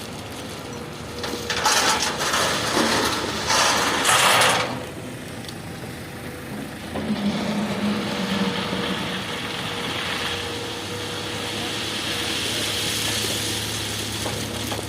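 Tata Hitachi excavator's diesel engine running steadily with a faint hydraulic whine, while stone is loaded: two loud rushing, grinding bursts of rock about two seconds apart, starting a second and a half in.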